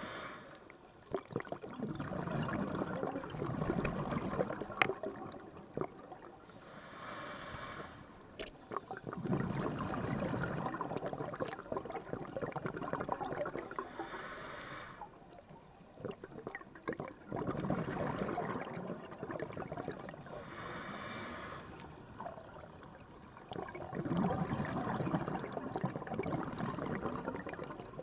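Scuba regulator breathing: a short hiss on each inhale, then a few seconds of bubbling rumble as the exhaled air escapes, repeating about four times.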